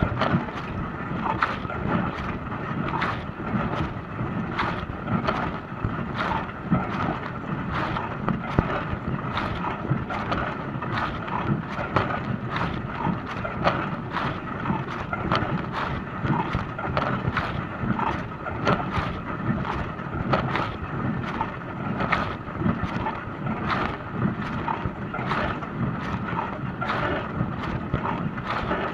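Dishwasher running, with water spraying and splashing steadily inside the tub at an even level.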